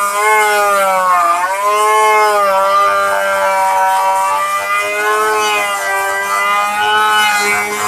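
Electric wood router running at high speed, a high-pitched whine whose pitch sags and recovers every second or two as the bit is pushed into the wood and eases off, profiling a door panel.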